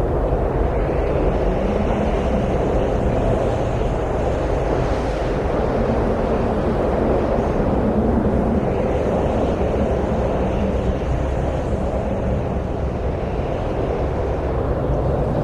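Steady wind noise, a full low rushing that swells and eases slightly.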